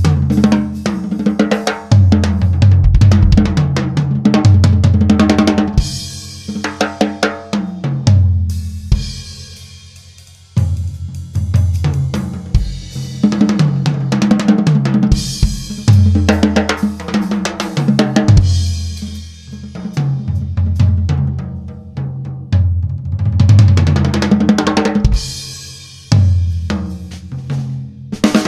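Acoustic drum kit played solo for a studio sound check: grooves and fills across snare, bass drum, toms, hi-hat and cymbals, with crashes left to ring out, the longest fading about eight seconds in before the playing starts again.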